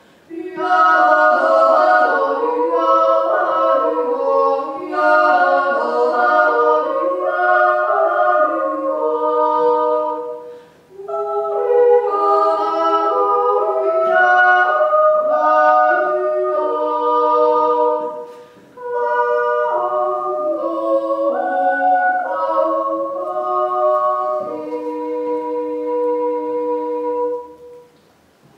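Two women's voices singing a Swiss yodel song as an unaccompanied duet in two-part harmony. They sing three long phrases with brief breaths between them, the last ending on a held note near the end.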